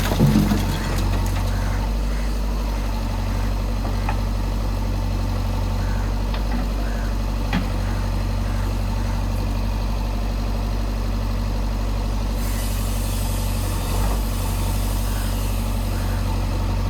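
Heavy diesel engine of earthmoving machinery running at a steady, low idle, with a brief louder clatter right at the start.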